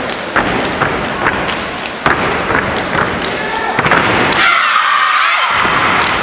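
Step team stomping and clapping in unison on a gym floor, a run of sharp strikes in quick rhythm. About four seconds in, high voices shout over the stepping.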